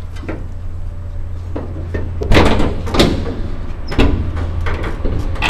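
The hood of a 1960 Chevrolet Brookwood wagon being unlatched and raised: a few clunks from the hood and its latch. The loudest come about two and a half seconds in, again at four seconds, and near the end.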